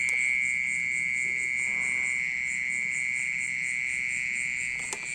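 A loud, unbroken high-pitched ringing trill, steady in pitch, from an unseen creature hidden among the potted plants, likened to a water pump. A brief tap sounds near the end.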